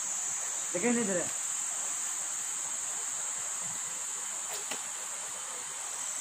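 Steady, high-pitched chirring of forest insects, with a brief shout from a person about a second in.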